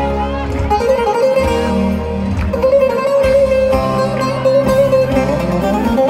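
Live band music at a concert, led by plucked string instruments, with a long held melody note through the second half.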